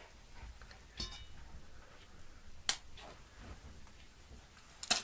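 A few sharp clicks and taps as a metal spoon and a tube of mustard are handled over a stainless steel mixing bowl, the loudest about two and a half seconds in and a quick pair near the end.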